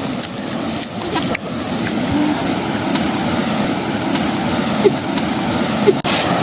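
Steady rushing noise outdoors, growing a little louder toward the end, with a few faint short chirps over it.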